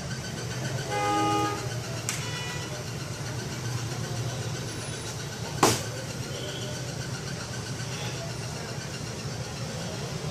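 Steady hum of street traffic, with a vehicle horn sounding briefly about a second in and again faintly just after. A single sharp click comes near the middle.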